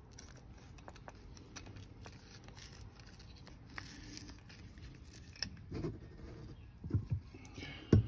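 Faint handling sounds of wire being bent by hand around the posts of a wooden bending jig: light scrapes and scattered small clicks, with a few soft knocks near the end.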